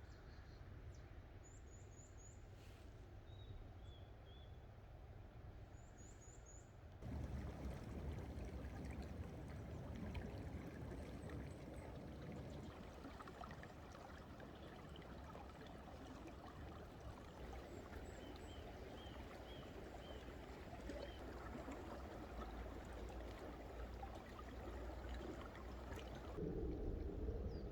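Mountain stream flowing, a faint steady rush of water that gets louder about seven seconds in, with small birds giving short high chirps now and then.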